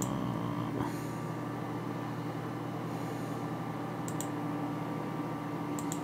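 Steady low hum of running computer equipment, with a few faint mouse clicks about four seconds in and near the end.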